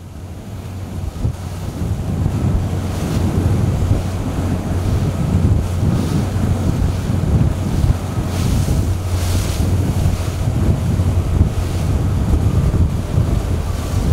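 Wind buffeting the microphone over choppy sea water, with a rushing, splashing wash of waves. The sound fades in at the start, then holds steady and loud.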